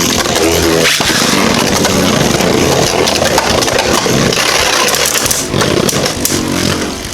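Two Beyblade Burst spinning tops whirring and rattling as they clash in a plastic stadium, a dense, steady grinding with many small hits. It gets a little quieter near the end.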